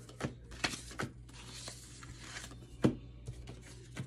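Hands shuffling a stack of paper cards: a papery rustle with several sharp taps, the loudest about three seconds in.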